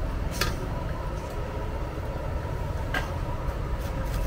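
Steady low background rumble with two short sharp clicks, about half a second in and about three seconds in, from a food vendor handling containers and utensils at a stall.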